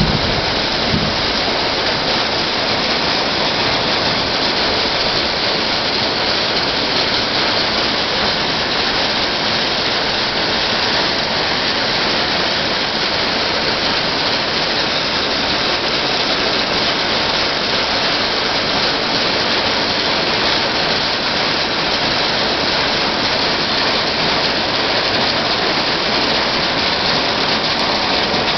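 Very heavy rain mixed with hail pouring down steadily onto concrete and parked vehicles, an even, unbroken hiss.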